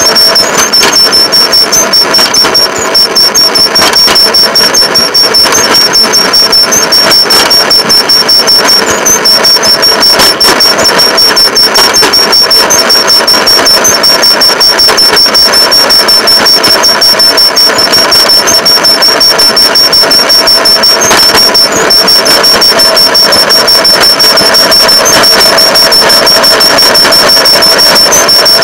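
Rail motorcar (track speeder) running steadily along the track, loud and close, with its engine and a rapid, even clatter. A steady high-pitched whine runs over it.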